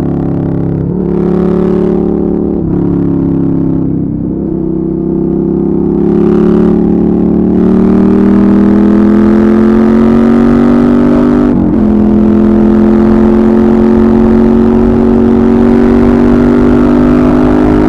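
Suzuki SV650S 645 cc V-twin engine heard from the rider's seat while under way. It changes up through three quick shifts in the first few seconds, then pulls with its note slowly rising, with one more brief break in the note about two-thirds of the way through.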